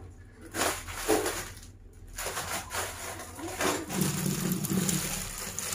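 Scattered rustling and handling of a plastic bag holding tofu, then, about four seconds in, a kitchen tap starts running steadily into a steel sink as the tofu is rinsed.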